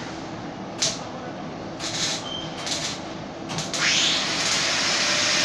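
Workshop background with a few sharp clicks and knocks, then about three and a half seconds in a MIG welding arc strikes and runs on with a steady loud hiss.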